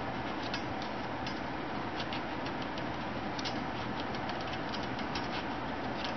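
Metal knife blade run around the inside edge of a non-stick bundt pan to loosen a baked cake, giving light, irregular ticks and scrapes against the pan, over a steady rushing background noise.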